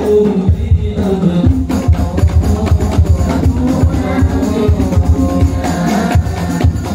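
Men singing sholawat, Islamic devotional songs, together into microphones through a PA, over a quick steady beat of hand drums.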